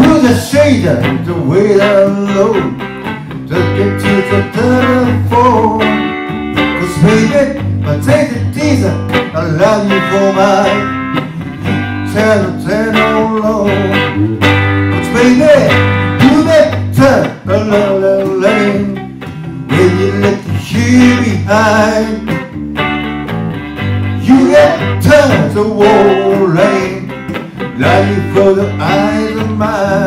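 Live electric guitar playing a slow blues-soul groove, with a voice singing over it.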